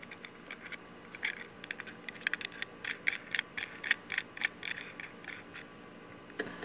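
Light, irregular metallic clicks and ticks of a steel hydraulic fitting being turned and handled by hand in a bulkhead bracket.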